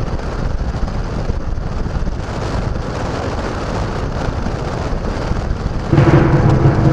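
Suzuki Gixxer motorcycle riding along, its engine running under a low rumble of wind on the microphone. About six seconds in, the engine note gets louder and holds a steady hum.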